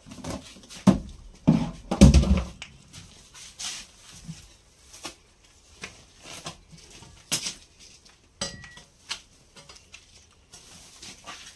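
Irregular rustling and dull thuds of paddy straw being handled and pressed into mushroom beds, with a few heavier thuds about one to two and a half seconds in and scattered sharp clicks after.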